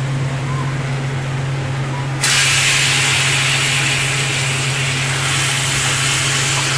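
Raw chicken pieces going into a kadhai of hot oil and fried masala, setting off a loud, steady sizzle about two seconds in. A steady low hum runs underneath throughout.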